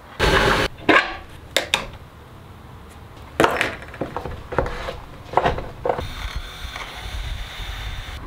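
Knocks and clatter from handling hard 3D-printed plastic hydrofoil parts and tools, in a series of short sharp hits. Near the end, a cordless drill runs steadily, boring into the surfboard.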